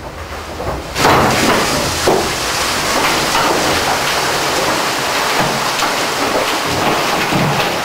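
Coal pouring from a loading chute into a narrow-gauge mine tub: a dense rushing noise that starts suddenly about a second in and keeps up steadily.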